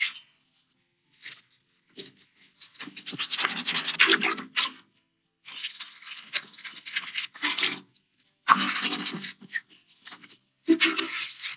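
A flat gap-cleaning brush scrubbing back and forth in narrow crevices around a sink tap and a toilet seat hinge: several bursts of quick scratchy strokes with short pauses between them.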